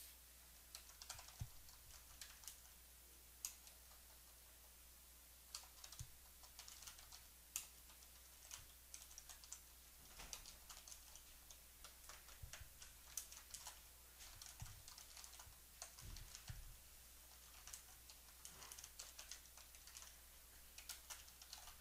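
Faint typing on a computer keyboard: quick irregular keystrokes with short pauses between bursts, over a low steady hum.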